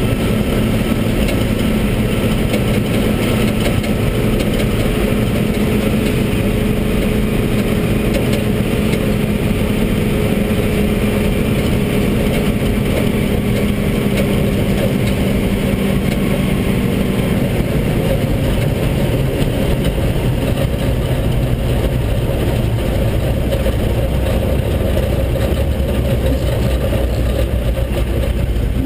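Cummins diesel engine of a military 5-ton 6x6 dump truck running steadily on the road, heard from inside the cab. About two-thirds of the way through, the engine note drops lower.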